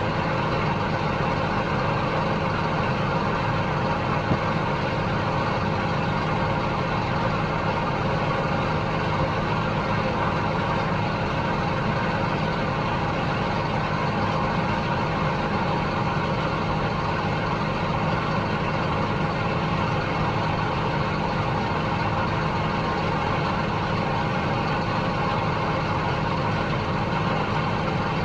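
Gleaner S67 combine running steadily while harvesting soybeans, a constant engine and machinery drone with no change in pace.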